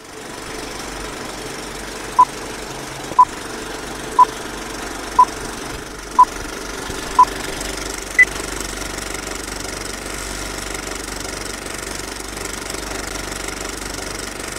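Old film projector running with a steady clatter and hiss. It carries a countdown of six short beeps one second apart, then a final higher beep a second later.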